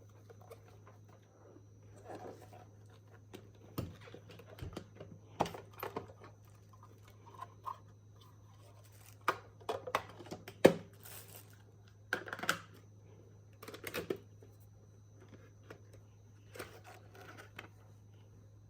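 Hands handling the capsule coffee machine and its packaging: scattered clicks, knocks and rustles, the sharpest knock about two-thirds of the way in, over a steady low hum.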